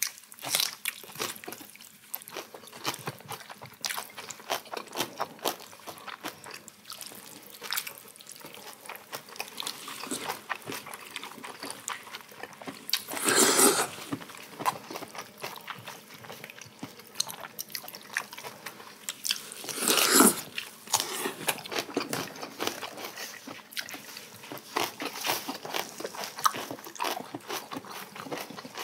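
Close-up eating sounds: chewing and crunching of Korean side dishes and lettuce, with small clicks of chopsticks and a spoon against dishes. Two louder crunching sounds of about a second each stand out, about a third and two thirds of the way through.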